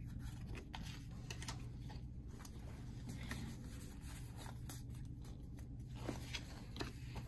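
Pokémon trading cards handled and flicked through by hand: faint rustles and a few light clicks of card on card, over a steady low hum.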